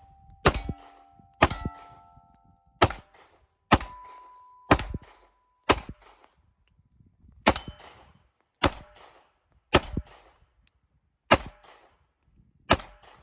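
Eleven 9 mm pistol shots fired one at a time, roughly one a second with a few short pauses. Some are followed by a brief ringing tone. These are the closing shots of a 13-round extended magazine that feeds and fires without a stoppage.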